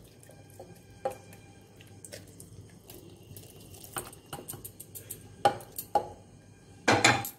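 Metal pan and spatula clinking and scraping against a stainless steel mixer-grinder jar as a cooked onion, tomato and cashew mixture is tipped in: scattered light knocks, with the loudest clatter near the end.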